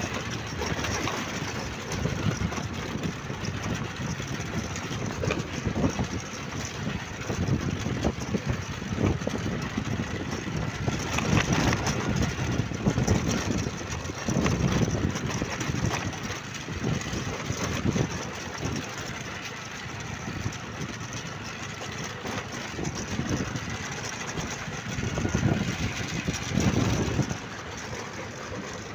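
A vehicle running on the move: a steady engine hum under uneven, swelling road and wind noise.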